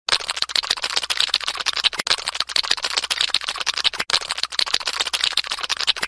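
Dense, rapid crackling and clicking, like fine rasping, offered as the sound of a snail. It comes in three near-identical stretches of about two seconds, each broken off by a split-second gap, as a short loop repeated.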